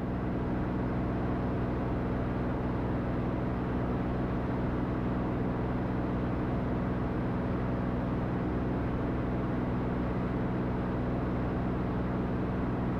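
Cirrus SR22T's turbocharged six-cylinder engine and propeller at climb power, a steady drone heard inside the cabin.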